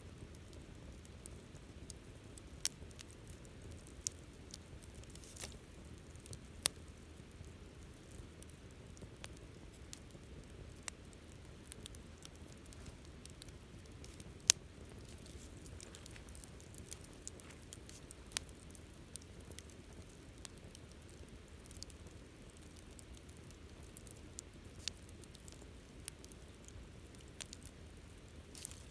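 Wood campfire crackling: scattered sharp pops and snaps over a low, steady hiss of burning, the loudest pop about halfway through.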